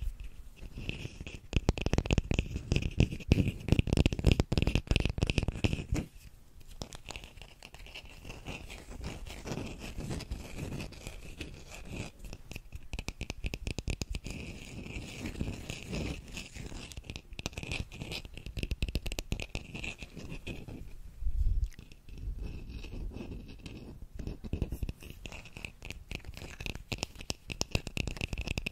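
Rapid fingernail tapping and scratching on a small cow-print bowl held close to the microphone, a dense crackle of quick strokes that is louder in the first few seconds and then softer. There is one dull knock about three quarters of the way through.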